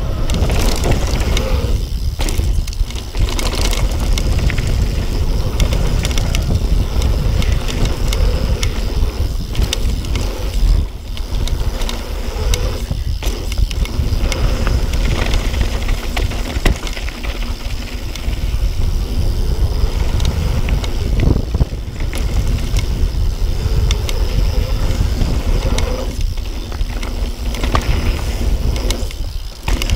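Yeti SB6 mountain bike riding fast down a packed-dirt jump trail: tyres rolling on dirt and the bike rattling, with wind rushing over the camera microphone. The noise dips briefly several times.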